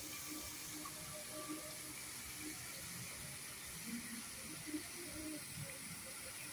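Multi-jet park water fountain spraying into its pool: a steady hiss of falling water.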